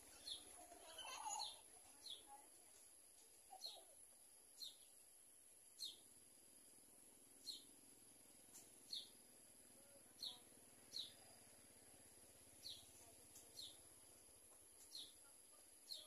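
Society finch giving short, sharp chirps, about one a second, over a faint steady high-pitched whine.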